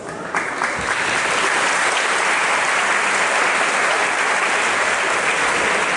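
Audience applauding, swelling up about half a second in and then holding steady.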